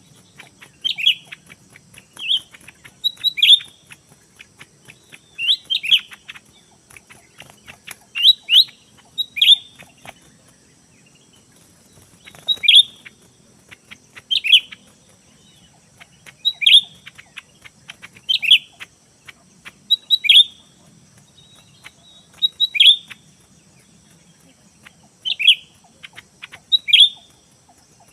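A bird repeatedly giving short, sharp chirps that sweep downward, often two at a time, every second or two. A faint steady high-pitched drone, like insects, runs underneath.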